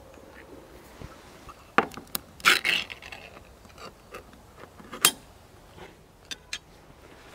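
A small tin food can being opened and handled: several sharp metallic clicks and a short scrape about two and a half seconds in, then another sharp click about five seconds in.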